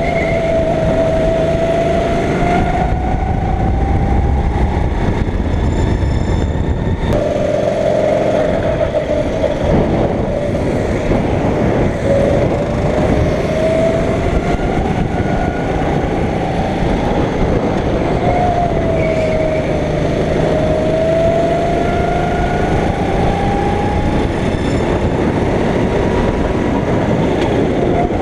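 Go-kart engine running hard, its pitch rising and falling repeatedly with the throttle through the laps.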